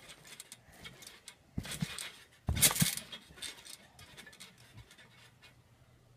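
Trampoline bouncing: a series of clicks and rattles, with heavy thuds of someone landing on the mat. The thuds come twice, and the loudest is about two and a half seconds in. It dies down near the end.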